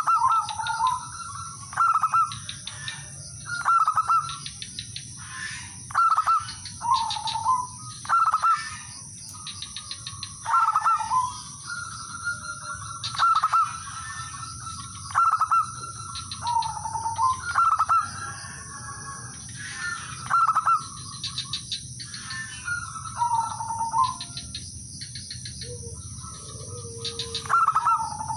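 Male zebra dove (perkutut) singing: short phrases of rapid staccato cooing notes, each ending in a lower drawn-out coo, repeated every second or two. This is the male's call to rivals.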